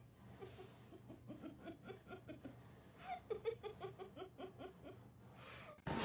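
A person laughing softly in a long run of short, quick 'ha-ha' pulses, about four a second, with a second, stronger run about three seconds in.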